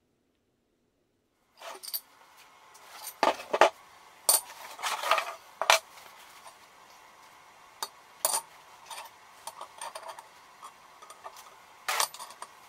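Metal pieces handled and set down on a wooden workbench around a car brake disc: irregular metallic clanks and clinks, starting after about a second and a half of silence, with a busier run of knocks a few seconds in.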